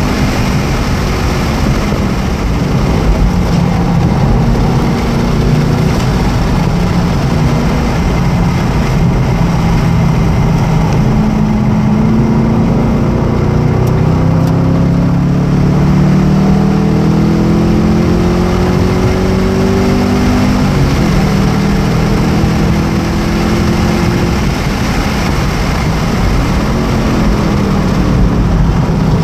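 A 2015 Camaro 1LE's 6.2-litre V8 heard from inside the cabin at track speed, over steady wind and tyre noise. The revs climb for several seconds under acceleration and fall sharply about twenty seconds in, then build again.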